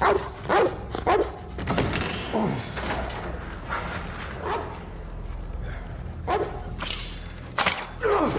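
A dog barking: short, separate barks, about ten of them spread unevenly through the stretch, over a low steady hum.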